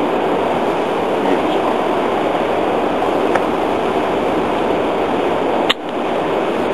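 Steady rush of flowing river water, with one sharp knock near the end.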